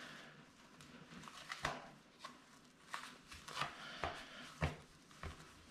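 Adhesive surgical dressing and gauze being peeled off skin: faint, irregular rustling and crinkling with short crackles every half second or so.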